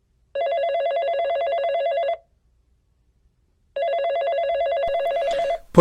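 Telephone ringing twice with a rapidly warbling electronic ring, each ring nearly two seconds long: an incoming call, answered right after.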